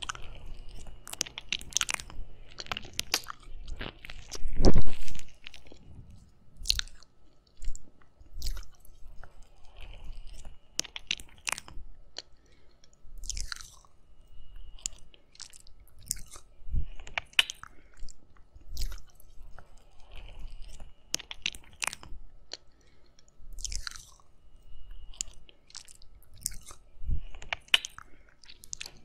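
Wet, close-up mouth sounds on the silicone ears of a binaural microphone: tongue licking, sucking and lip smacks through whipped cream, coming as irregular clicks and slurps, with one louder thud about five seconds in.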